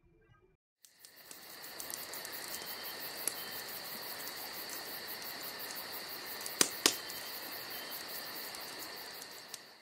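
Crickets chirping in a steady night-time chorus that fades in about a second in, with two sharp snaps close together about two-thirds of the way through.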